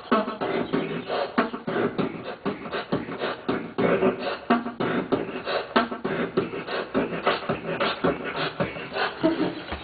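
Beatboxing: a man making a fast, continuous run of mouth-made drum beats and clicks, with his hands cupped around his mouth.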